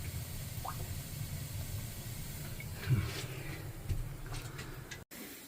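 Faint hiss of water escaping from a small leak in a pressurized hot-water supply pipe, over a steady low rumble. The sound drops out briefly near the end.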